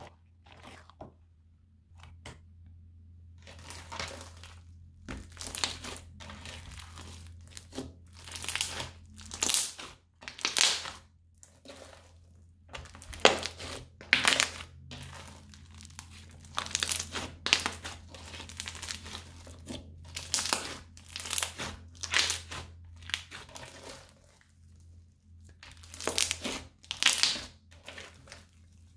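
Crunchy slime studded with small beads being squeezed and pressed by hand, giving a string of crackling, crunching bursts, one with each press, about one a second.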